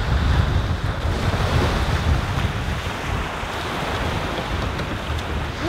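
Ocean surf washing up the beach in a steady rush, with wind buffeting the microphone in a low rumble.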